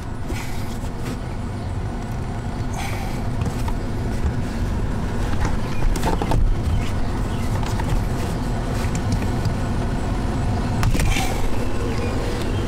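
Steady low rumble with a few scattered clicks and knocks of a plastic interior trim panel being pried and pulled off its stuck retaining clips.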